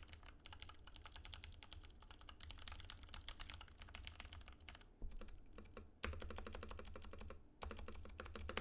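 Typing on a Filco Majestouch 2 tenkeyless mechanical keyboard with lubed, stickered 67 g Cherry MX Clear tactile switches, lubed Costar stabilizers and PBT keycaps: a rapid, steady clatter of keystrokes. It grows louder and denser from about six seconds in, with a brief pause shortly before the end.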